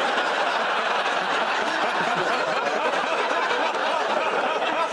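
Studio audience laughing, a steady sustained wave of laughter at full level.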